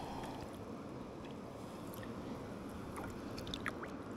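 Faint shallow river water lapping and trickling around a salmon held in the water, with a few small splashing ticks.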